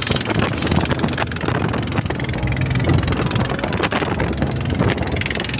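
A small fishing boat underway at speed: its motor running steadily under wind buffeting the microphone and water rushing and splashing along the hull.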